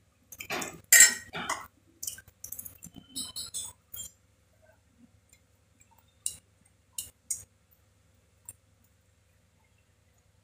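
Stainless-steel mixer jar and spoon clattering and scraping as ground masala paste is knocked out into a pressure cooker: a run of metal clinks and scrapes over the first four seconds, then three sharp clinks a little past the middle and one more near the end.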